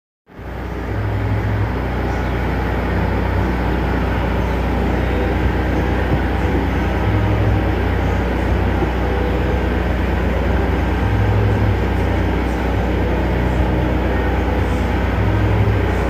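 An engine running steadily at constant speed, a loud even drone with a deep hum under it, starting abruptly.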